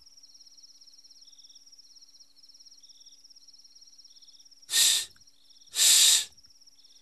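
Crickets chirping in a steady, rapid high trill, with a man breathing out heavily twice, about five and six seconds in; the second breath is longer.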